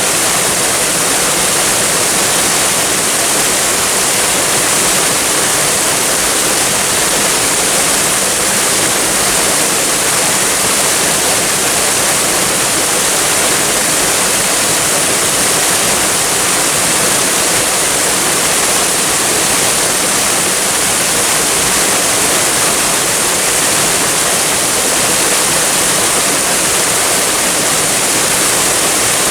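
Waterfall and flowing water rushing steadily, a constant hiss strongest in the high range.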